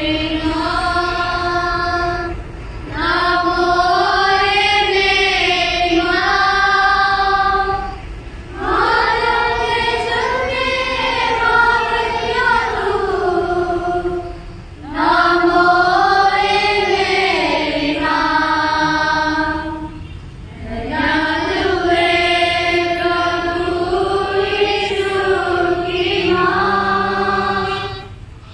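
Group of voices singing a closing hymn together in unison, in long phrases of about six seconds with short pauses for breath between them.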